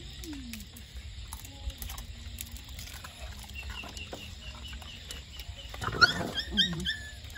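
Animal calls: a run of faint high chirps, then a loud, short, harsh call about six seconds in.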